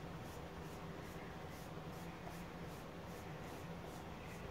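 Faint, steady scratching of a paintbrush stroking wet paint onto a wooden cabinet frame in a quick, even rhythm, over a low steady room hum.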